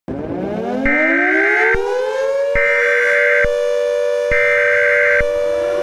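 Civil defense siren starting from silence and winding up, its pitch rising for about a second and a half and then holding as a steady wail. Three long, high electronic beeps, each about a second long, sound over it, starting about a second in.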